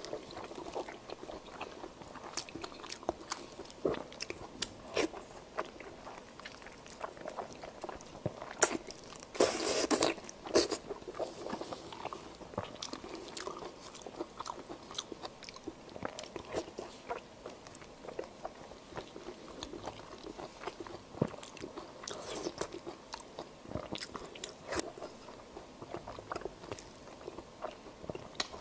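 Close-miked biting and chewing of Chinese blood sausage in its soft casing, an irregular run of clicky, wet mouth sounds. The loudest burst comes about ten seconds in.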